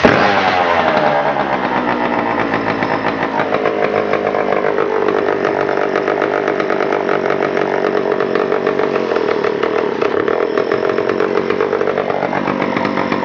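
Homelite 2100 Super Auto chainsaw's 7-cubic-inch two-stroke engine catching and running loud. Its pitch drops over the first second, holds steady, and rises again as it revs up near the end.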